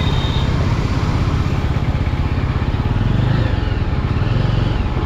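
Yezdi Adventure's single-cylinder engine running while the motorcycle is ridden, its pitch rising and falling a few times near the end.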